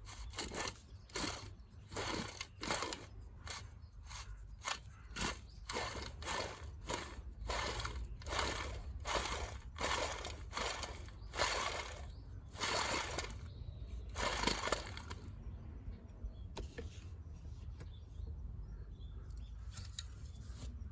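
Failed rebuilt alternator on a Honda Vamos making irregular crunching, grinding noises about once or twice a second over the engine's steady low running drone. The alternator has blown. The grinding stops about fifteen seconds in, leaving only the drone.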